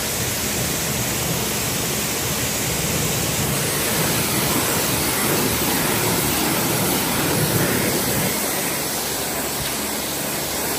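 High-pressure washer wand spraying a steady jet of water onto a truck wheel, a loud continuous hiss.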